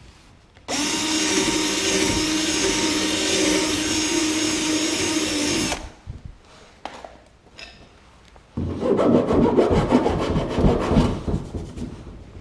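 Cordless 20-volt drill running steadily for about five seconds as it bores a rivet hole through a plastic kayak hull. A few seconds later comes a rough scraping and rubbing at the hole that lasts about three seconds.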